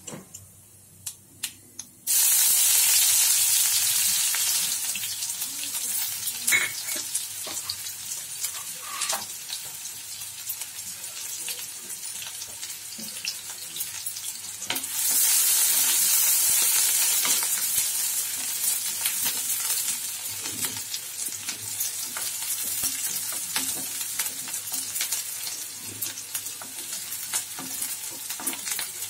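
Chopped onions hit hot oil in a kadhai with a sudden loud sizzle about two seconds in, after a few faint ticks, then fry steadily. The sizzle swells again about halfway through, with a wooden spatula stirring and scraping the pan.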